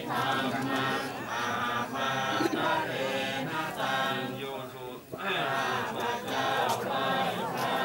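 A group of voices chanting together, many voices overlapping, with a short pause about five seconds in.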